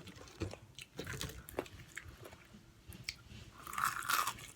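A person chewing and biting food close to the microphone, with scattered crunches and wet mouth clicks, and a louder, noisier sound about four seconds in.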